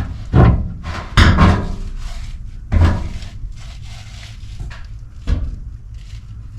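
Knocks and thuds from old sheet-metal HVAC duct pieces being handled: four sharp hits spread over several seconds, the loudest two in the first seconds.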